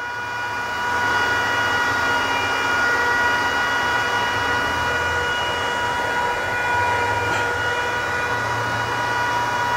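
Homemade induction heater driven by an inverter welder, running under load as it heats a thick steel bar in its water-cooled copper coil. There is a steady electrical whine of several high tones over a hiss and a low hum, which swells over the first second and then holds steady.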